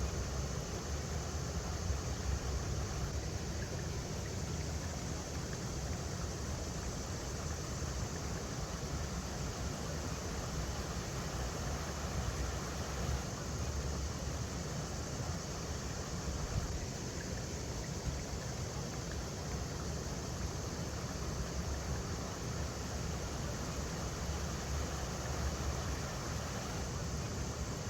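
River water flowing steadily over rocks, an even rushing hiss with a steady low rumble underneath.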